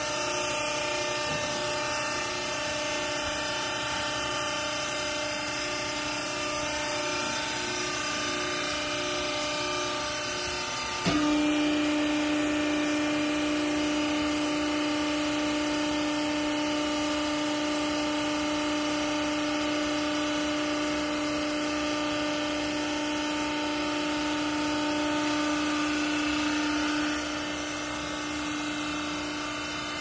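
Hydraulic baler's electric motor and pump running with a steady hum. About a third of the way in the hum suddenly gets louder and stronger as the pump goes under load, driving the press ram down onto the clothes, then it drops back near the end.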